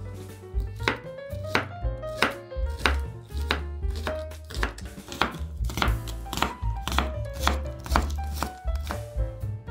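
Kitchen knife slicing green onions on a wooden cutting board, each cut ending in a crisp knock on the board, at a steady pace of about three cuts every two seconds. Background music plays underneath.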